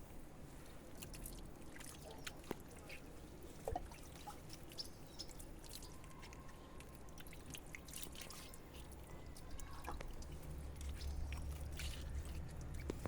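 Faint water dripping and trickling during a cat's flea bath, with scattered small clicks and taps.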